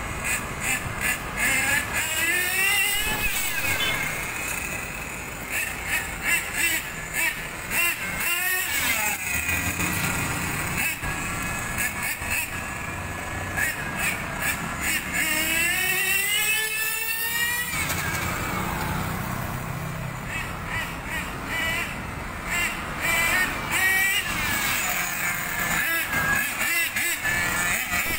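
A radio-controlled model car's motor, whining up in pitch several times as it accelerates, over steady street traffic noise.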